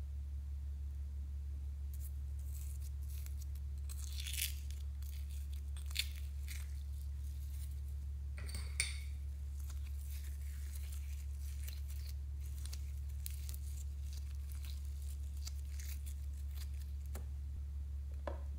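Hands working glittery slime and loose glitter in a glass tray: scattered crackling and crinkling, with two sharp clicks partway through, over a steady low hum.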